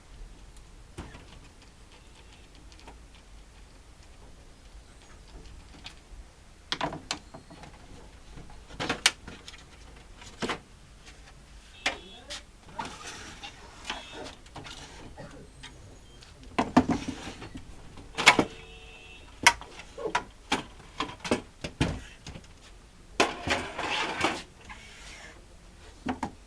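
Hands working on a Canon MF3110 laser printer: irregular plastic and metal clicks and knocks, with short stretches of rattling and scraping as parts are handled. The clicks are sparse at first and come thicker later, with the loudest knocks a little past the middle.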